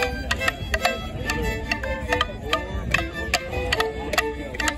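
Border morris dancers' wooden sticks clacking together, about three sharp cracks a second, over a live dance tune.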